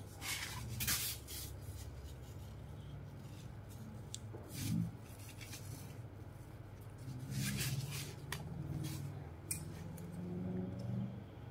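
A baby grabbing and climbing into a fabric pop-up play tent: scattered rustles and scuffs of the tent's cloth and frame, loudest about a second in and just before the halfway point.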